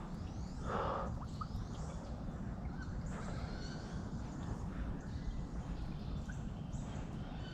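Wood ducks calling as they fly over: repeated high, squealing calls that drop in pitch, over a steady low rumble, with a short rustling burst about a second in.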